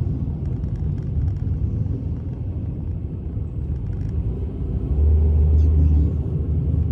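Low rumble of a car's engine and road noise heard from inside the cabin while driving slowly; the rumble swells louder for about a second near the end.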